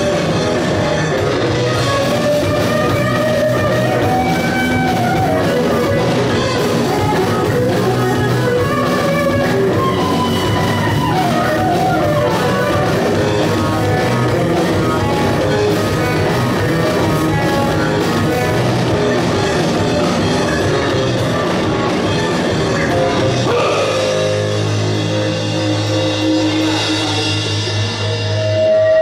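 Live hard-rock band playing electric guitars, bass and drum kit. Near the end the band holds a long, low sustained chord.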